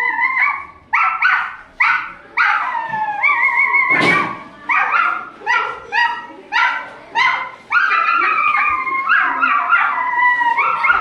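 A dog yipping and whining: a run of short, high yips with longer wavering whines before and after, and a single sharp knock about four seconds in.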